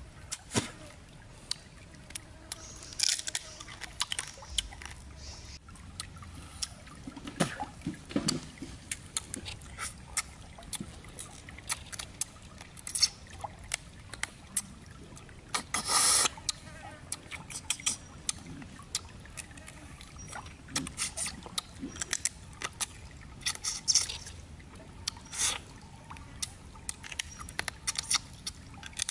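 Close-up eating of cooked crab: shell pieces cracking and crunching between the teeth, with wet chewing, sucking and lip smacks in an irregular run of sharp clicks, a few of them much louder.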